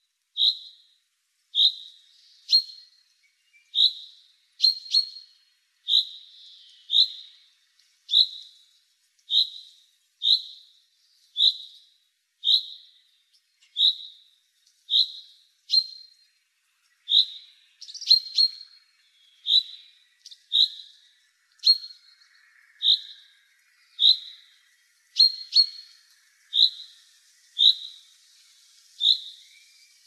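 Madeira chaffinch repeating a short call note about once a second, now and then doubled.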